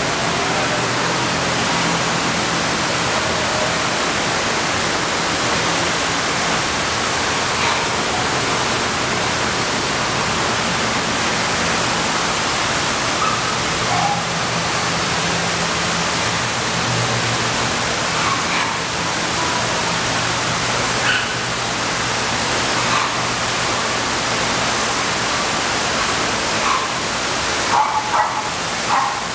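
Dogs barking and yipping in shelter kennels, scattered calls that come more thickly near the end, over a loud steady rushing noise.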